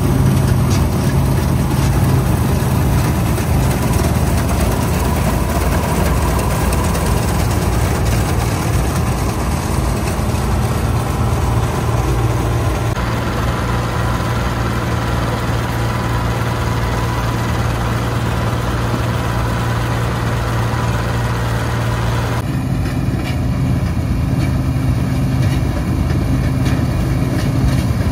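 Bizon Super Z056 combine harvester's six-cylinder diesel engine running steadily at a constant speed, with a steady low hum. The sound changes abruptly about halfway through and again near the end.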